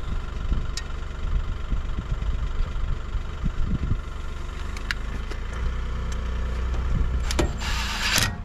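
A steady low engine-like drone runs throughout, with a few sharp metallic clicks. Near the end comes a loud rush of noise lasting under a second.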